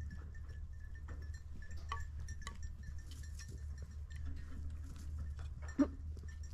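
Goat kids and a goat moving about a straw-covered pen, with faint scattered clinks and ticks, one short louder sound near the end, and a steady low rumble of wind on the microphone.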